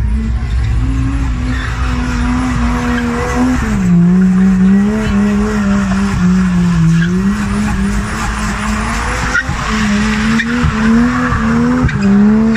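Car engine held at high revs while drifting, its pitch wavering up and down with the throttle and dropping sharply about four seconds in, over the continuous squeal of rear tyres spinning and sliding sideways.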